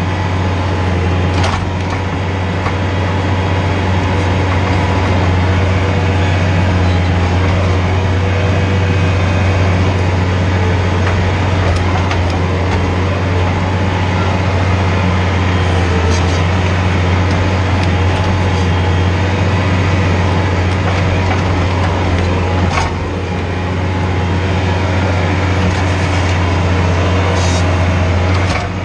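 Skid steer engine running steadily under load as its tree spade attachment breaks up compacted soil, a deep constant drone with a few sharp knocks from the attachment. The engine note dips briefly about three-quarters of the way through.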